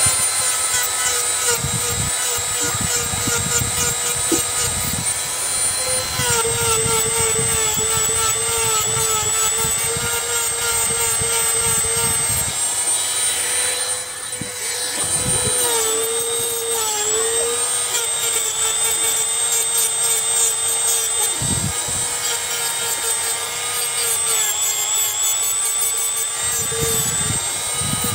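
Handheld mini rotary grinder running at high speed with a steady high-pitched whine, grinding down the depth gauges (rakers) of a chainsaw chain. Its pitch sags briefly a few times as the tool is pressed against the chain.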